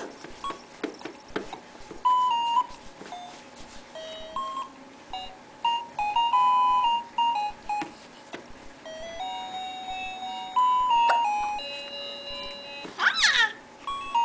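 Piano keys pressed with a child's feet: scattered, unmelodic single notes and short held tones, one or two at a time. Near the end, a brief high squeal sweeps up and down.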